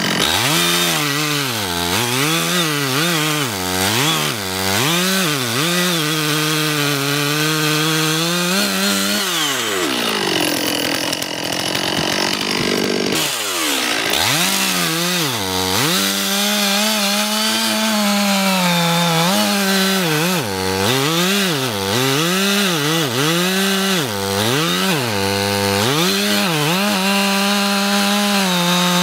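Two-stroke chainsaw cutting into a large tree trunk at high revs, its pitch repeatedly dipping and recovering as the chain loads up in the wood. Near the middle the revs drop away for about three seconds before it revs back up and carries on cutting.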